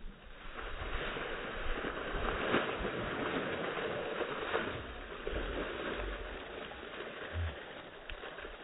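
Water splashing and sloshing out over the rim of a full trash can as a person plunges headfirst into it, with a dull low thump near the end.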